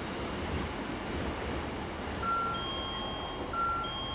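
Two-note ding-dong chime, high note then lower note, sounding twice about a second and a half apart, typical of a Japanese station platform chime. Underneath is a faint low rumble from the train rolling slowly away.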